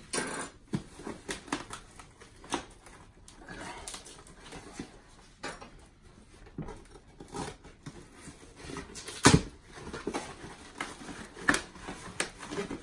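Cardboard shipping box being pulled and torn open by hand, with scraping, rustling and scattered knocks of the cardboard. A sharp thump comes about nine seconds in and another about eleven and a half seconds in.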